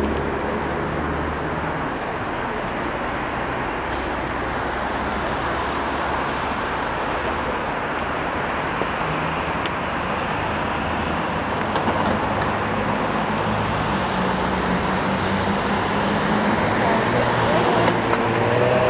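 Steady road traffic on a wide city road: cars passing close by with engine hum and tyre noise, getting a little louder near the end.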